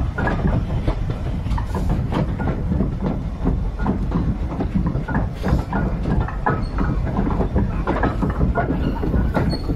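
Steam train running along the line, heard from on board: a steady rumble with irregular clicks and knocks from the wheels on the track.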